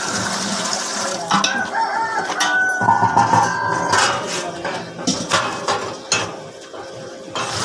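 A rooster crowing in two long calls in the first half, then a run of metal clinks and knocks as a stainless steel lid is fitted into the ice cream mixer's canister.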